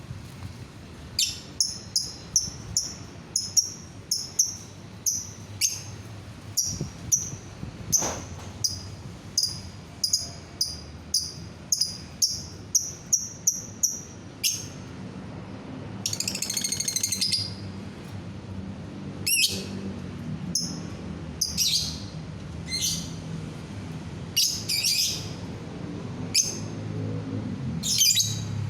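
Lovebird calling: a long run of sharp, high chirps, about two a second, then a longer chattering call and scattered single calls.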